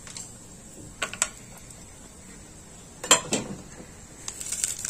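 Steel plate and aluminium pot clinking as cooking ingredients are handled: a couple of light knocks about a second in and a louder clatter about three seconds in, with faint clicking near the end.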